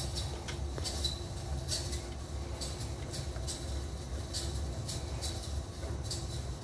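Helical gears and roller bearings of an open two-stage helical gearbox being turned slowly by hand at the input shaft, giving light, irregular metallic ticks over a steady low rumble.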